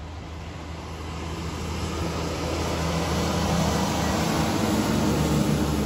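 A coal truck going by on the road: its diesel engine's steady drone and tyre noise grow louder as it comes near, loudest near the end.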